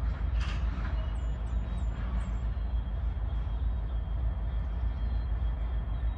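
Outdoor ambience dominated by a steady low rumble, with four quick, faint high chirps between about one and two and a half seconds in.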